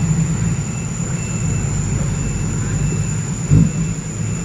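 Loaded dump truck's diesel engine running at idle, a steady low rumble, with a brief thump about three and a half seconds in.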